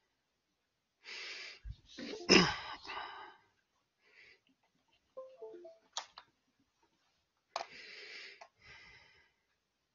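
A man breathing through his nose into a headset microphone: several separate breaths, with one louder voiced exhale falling in pitch about two seconds in. A couple of sharp clicks come near the middle and toward the end.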